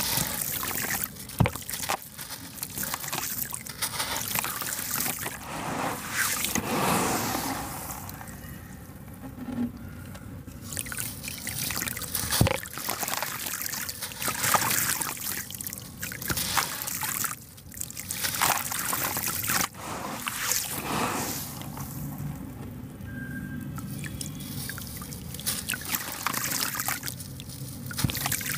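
Lumps of sand-and-cement crumbled by hand over a basin of water: crunching, with grit trickling and pattering into the water. It comes in spells with a couple of quieter lulls and a few sharp clicks.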